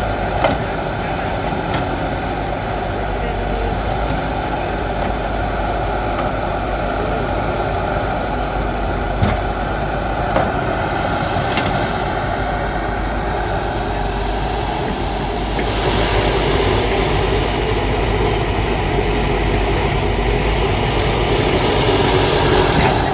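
Backhoe loader's diesel engine running steadily, with a few short knocks and a rise in engine noise from about two-thirds of the way in.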